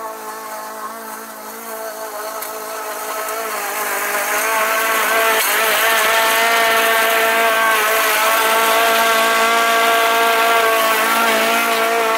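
Walk-behind petrol lawn mower engine running steadily while mowing grass, its pitch nearly constant. It grows louder about four seconds in as the mower comes close, stays loud, and begins to fade near the end as it moves away.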